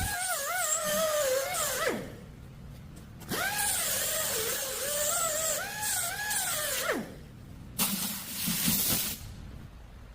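Handheld electric power tool on metal, its motor whining in two runs that each spin up, waver and sag in pitch under load, then wind down. A shorter, rougher noisy burst follows near the end.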